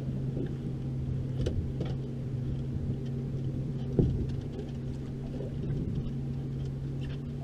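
Suzuki outboard engine running steadily with a low, even hum. A single sharp thump about four seconds in, with faint clicks here and there.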